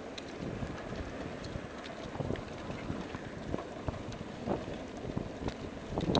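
Bicycle riding along a paved path, picked up by a camera mounted low on the bike: wind buffeting the microphone over a steady rolling rumble, with irregular knocks and rattles.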